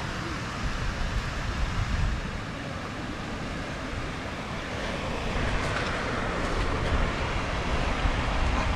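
Water sloshing and splashing as a fishing magnet on a rope is hauled up the face of a concrete wall to the surface, growing near the end, over a steady low rumble.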